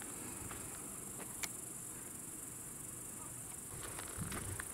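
Steady high-pitched chirring of insects in tall grass, with a few faint footsteps on a dirt track.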